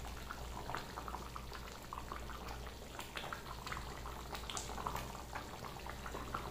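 Thick chicken curry simmering in a steel pot, with many small irregular bubbling pops, as a metal spatula stirs it; a steady low hum runs underneath.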